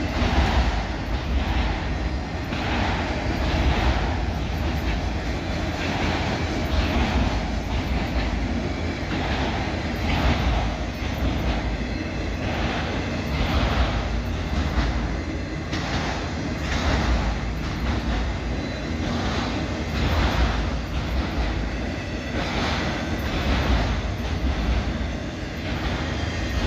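Freight train cars rolling past at speed: a steady heavy rumble with wheels clicking over rail joints about once a second.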